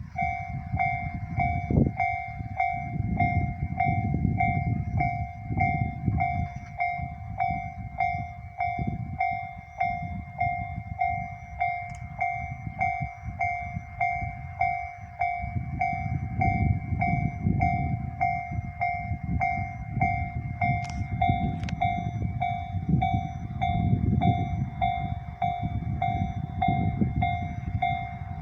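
Japanese railway level-crossing warning bell, the electronic kind, sounding its tone over and over at a slow, even tempo, while a Tobu Isesaki Line train passes over the crossing with a low rumble that rises and falls.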